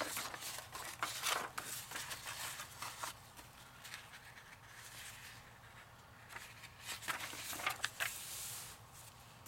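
Paper and book pages rustling and sliding as they are folded and handled, in short spells near the start, about three seconds in, and again around seven to eight seconds, with a quieter stretch between. A faint steady low hum runs underneath.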